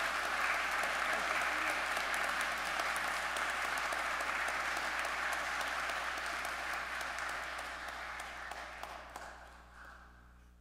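Congregation applauding in a large church, steady at first and then fading away over the last few seconds.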